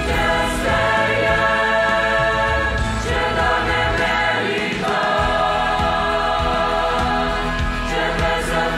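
Mixed youth choir of young men and women singing a Romanian Christian hymn in parts, with sustained, steady chords.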